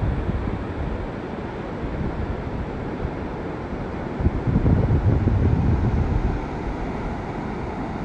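Wind buffeting the microphone, with ocean surf washing behind it. The gusts grow stronger about four seconds in and ease off near the end.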